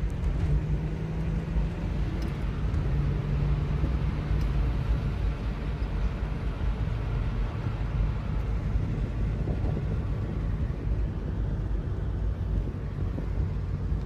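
Mazda MX-6's V6 engine running, heard from inside the cabin as a steady low hum.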